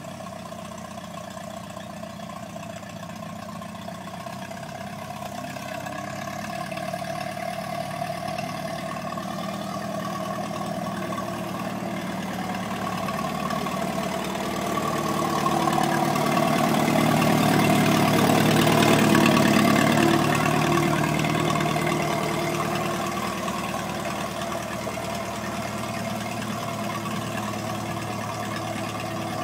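Minneapolis-Moline farm tractor's engine running steadily as the tractor drives past, growing louder to a peak a little past halfway and then fading as it pulls away.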